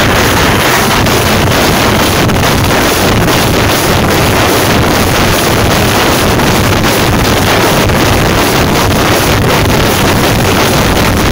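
A troupe of jamab frame drums beaten hard and fast with sticks, so loud that it overloads the microphone into a continuous distorted din.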